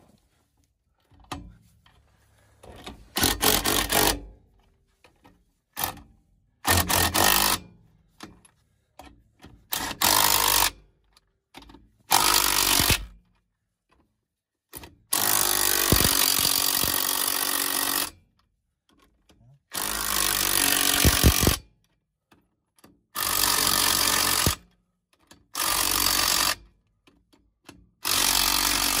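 Impact wrench running lug nuts down onto mobile home wheels, in about nine short bursts of a second or so each, one running about three seconds midway through.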